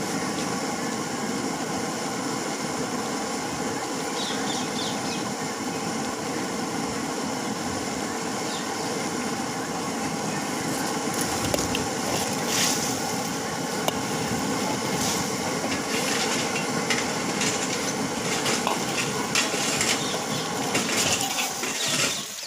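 Steady cooking noise at a street-food stall making manchurian, with scattered clinks of metal utensils from about halfway through.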